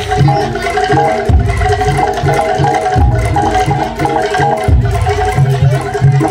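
Live East Javanese bantengan ensemble music: hand drums beat a steady, driving rhythm with heavy low strokes every second or two, under held ringing notes from gamelan-style pitched metal percussion.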